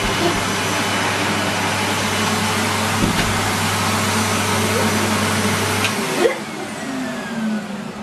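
Numatic Henry canister vacuum cleaner running on carpet, a steady rushing suction noise with a low hum. About six seconds in the motor is switched off and winds down, its whine falling in pitch.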